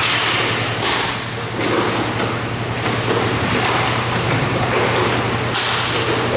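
Inline roller hockey play on an indoor rink: a few brief scraping swishes of skate wheels and sticks on the floor, with occasional knocks, over a steady low hum.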